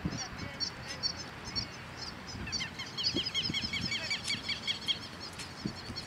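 Birds calling: a steady scatter of high, quick chirps that thickens into a fast run of sharp calls from about halfway through to near the end.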